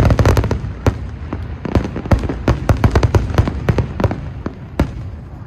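Fireworks bursting: a rapid string of sharp bangs and cracks, densest at the start and again in a quick run in the middle.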